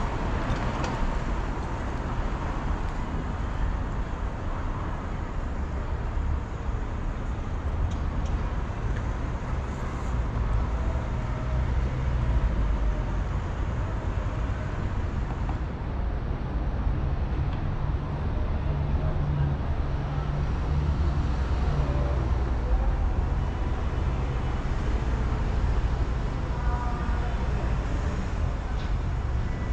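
Urban road traffic: a steady low rumble of cars passing along the street.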